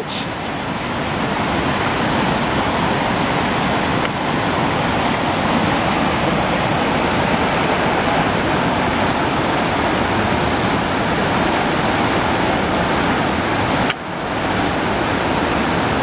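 Waterfall rushing steadily down smooth sloping rock slabs, a continuous loud wash of water. It drops out for an instant about two seconds before the end, then carries on.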